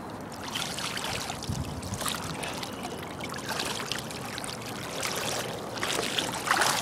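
Knee-deep floodwater sloshing and splashing irregularly around a bicycle and a person's legs as they wade back through it.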